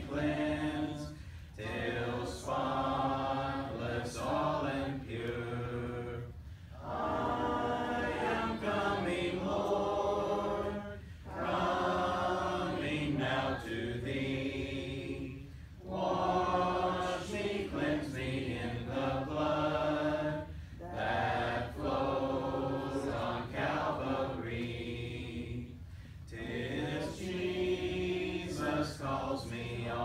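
A church congregation singing a hymn together without instruments, in sung phrases of several seconds with short pauses for breath between them. It is the invitation hymn sung standing at the end of a sermon.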